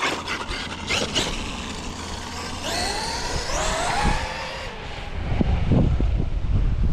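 Electric RC car motor whining and rising in pitch as the car accelerates on a speed run. Near the end, wind buffets the microphone with a low rumble.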